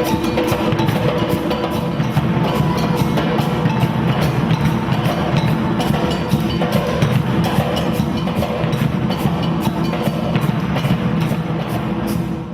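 Afro-Brazilian percussion ensemble drumming a driving rhythm, with a steady run of sharp, bright strikes over the deep drums. The playing breaks off at the very end.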